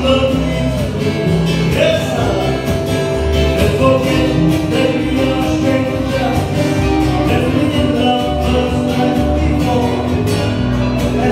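Live acoustic band playing: steel guitar, acoustic guitar and ukulele, with a man singing into a microphone.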